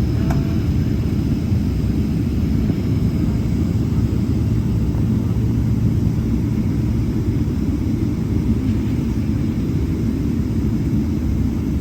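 Steady low rumble of a Boeing 777-300 heard from inside the passenger cabin: jet engines and airflow running evenly.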